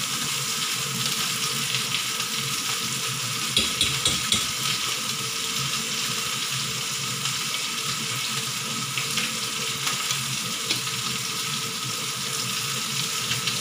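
Pot of chicken soup at a rolling boil: a steady bubbling hiss with a faint steady hum underneath. A few light clicks come about four seconds in.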